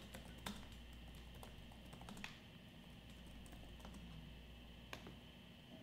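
Faint, scattered clicks of typing on a keyboard, a few keystrokes louder than the rest, over a low steady hum.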